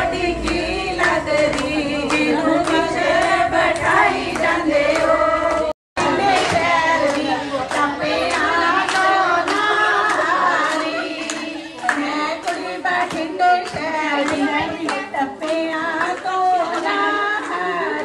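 A woman's voice singing Punjabi boliyan (folk couplets), with a group of women clapping along in time. The sound cuts out briefly about six seconds in.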